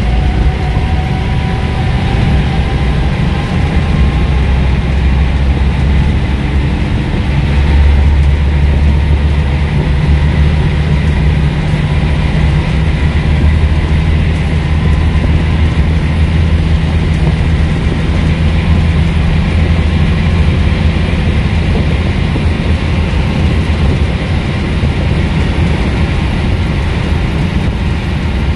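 Interior of a Scania N230UB single-deck bus under way: the five-cylinder diesel engine runs with a loud, steady low rumble, mixed with road and body noise in the saloon. A faint rising whine comes through in the first few seconds.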